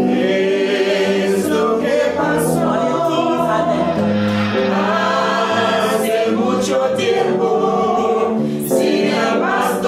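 Group of voices singing in harmony, a Spanish-language parang song with the voices moving together through held notes.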